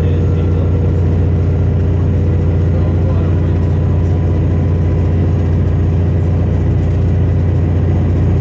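Old diesel railcar running, heard from inside the passenger saloon: a loud, steady low engine drone that does not change.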